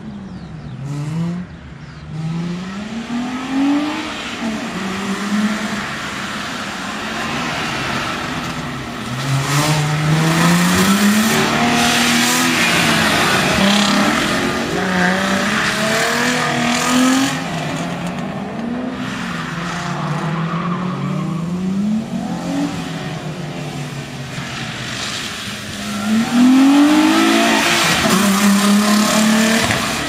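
Audi Coupe quattro engine revving hard again and again, its pitch climbing under acceleration and dropping on lift-off and braking, as the car is thrown through tight turns. Tyres hiss and squeal on the wet tarmac, loudest through the middle and near the end.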